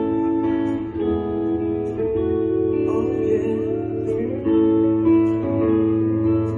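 Music: a guitar plucking and strumming sustained chords, an instrumental passage with no singing.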